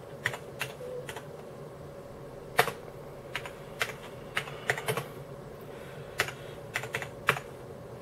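Computer keyboard being typed on slowly, about a dozen separate keystrokes at uneven intervals as a command is entered, over a faint steady hum.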